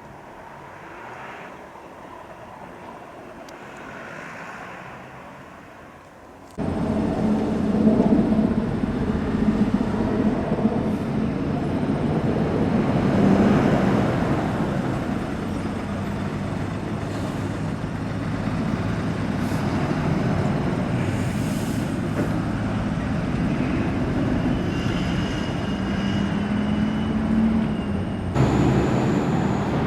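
A Seibu Shinjuku Line electric train passing over a level crossing: a loud, sustained rumble that starts abruptly about six seconds in and runs on for about twenty seconds, after a few seconds of faint traffic hum.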